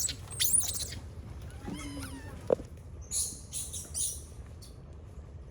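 Macaque squealing: high sliding squeaks in the first second, then a shorter, lower call about two seconds in. A quick run of short scratchy sounds follows about three to four seconds in.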